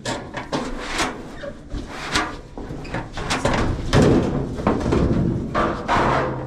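Clanks, knocks and scraping of a dryer's sheet-metal cabinet and drum parts being handled and shifted during a teardown, a quick run of irregular hits with rubbing between them.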